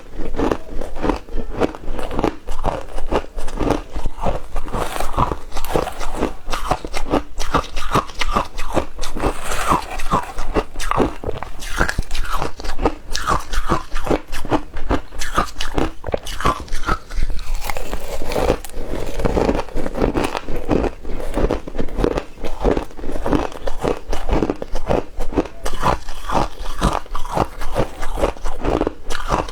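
Ice being bitten and chewed in the mouth: continuous crunching, several crunches a second.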